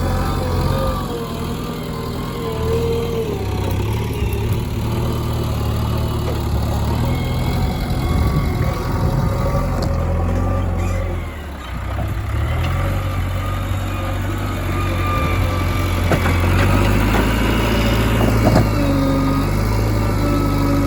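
JCB backhoe loader's diesel engine running steadily. Its note drops briefly about halfway through, then picks up again, and a few sharp knocks come in the later part.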